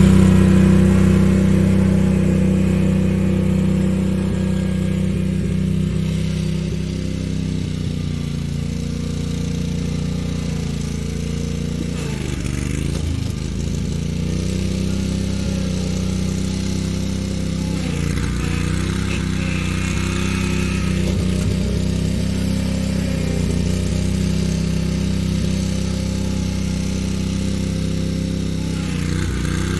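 Riding lawn mower engine running steadily. It fades over the first several seconds, then holds an even note, with a few brief dips in pitch.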